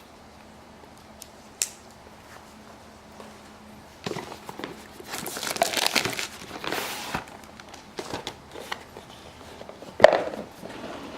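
Plastic shrink wrap on a Magic: The Gathering Fat Pack box being cut and pulled off: a few light clicks, then a few seconds of crinkling and tearing starting about four seconds in, followed by lighter handling and a sharp knock near the end.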